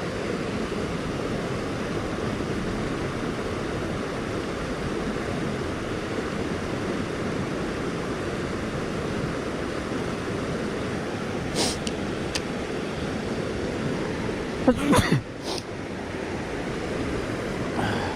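Steady rush of water pouring over a spillway. A couple of brief clicks come partway through, and a short louder burst follows about fifteen seconds in.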